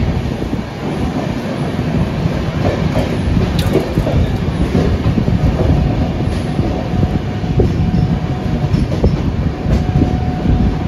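Passenger train running over the rails, with a steady rumble and the clack of wheels on rail joints. A thin steady whine rises through the second half.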